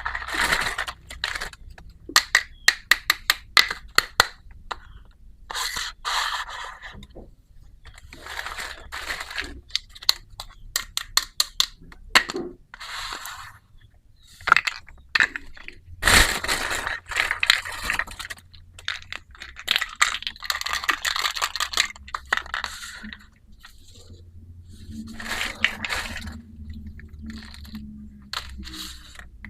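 Small plastic toy kitchen pieces being handled and unpacked: runs of sharp clicks and taps, with patches of scraping.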